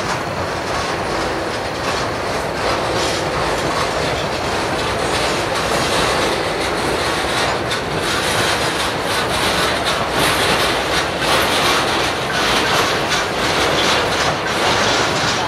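Freight train cars rolling past close by, steel wheels clicking and clanking steadily over the rail joints.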